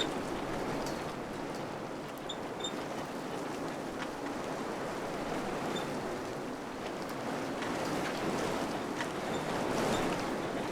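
Wind blowing in gusts, a steady rushing noise that swells and eases, strongest near the end, with a few faint clicks and short high chirps.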